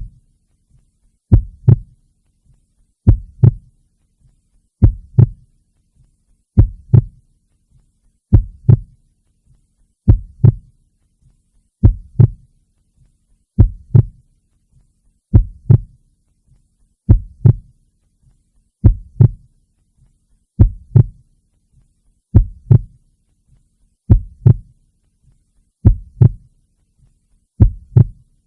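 A heartbeat beating slowly and evenly: a double thump (lub-dub) about every second and three-quarters, deep and low.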